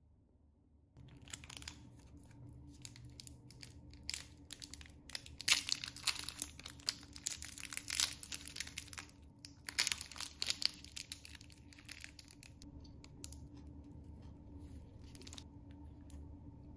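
Foil wrapper of a chocolate bar crinkling and tearing as it is unwrapped by hand. The crackle begins about a second in, is busiest in the middle, and thins to scattered crinkles near the end.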